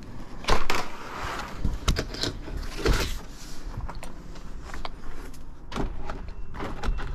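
Vinyl board and batten siding panels being handled and fitted into J channel: the plastic rattles and scrapes, with sharp knocks, the loudest about half a second in and another near three seconds.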